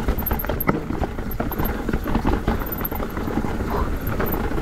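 Cube Two15 downhill mountain bike on VeeTire Snap WCE tyres ridden over rough trail: a steady rumble of tyres on dirt under a rapid, irregular clatter of knocks and rattles from the bike.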